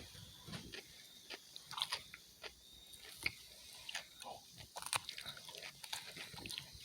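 Close-up chewing of a mouthful of salad with cucumber and cheddar cheese: soft, irregular crunches and wet mouth clicks.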